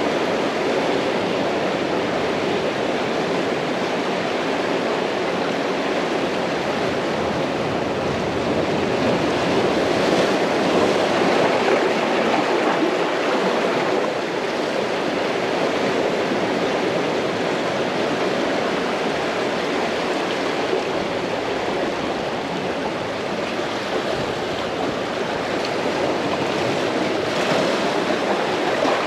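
Sea surf breaking and washing on the shore, a steady rush that swells somewhat about ten seconds in.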